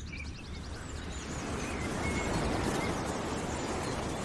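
Outdoor nature ambience: small birds chirping over a steady rushing noise that swells about two seconds in, with a fast trill at the start.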